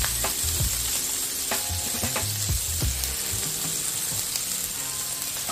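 Chopped spring onions and garlic sizzling in hot vegetable oil in a frying pan, with a few crackles here and there.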